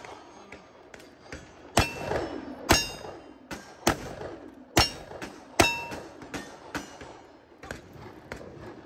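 Five revolver shots about a second apart at steel targets, with the plates ringing after the hits.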